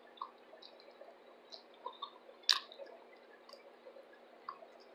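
A person chewing fried shrimp close to the microphone: scattered wet mouth clicks and smacks, with one sharper click about two and a half seconds in.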